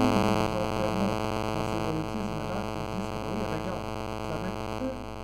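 Steady electrical buzz made of many even tones, with faint shifting tones underneath it.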